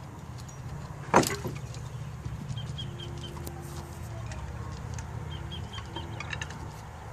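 Wooden PlayTunes marimba frame being folded up: one sharp wooden knock about a second in, then lighter knocks and clicks as the legs and bar frame shift, over a steady low rumble.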